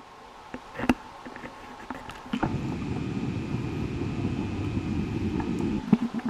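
National (Panasonic) F-LA301 orbit ceiling fan running: a low motor hum with air noise. A click about two and a half seconds in brings a fuller, steadier sound. Another click near the end drops it back to a fast pulsing hum. There is also a single click about a second in.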